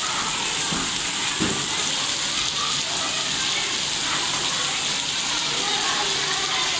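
Steady rainfall, an even hiss of many drops that keeps on without a break.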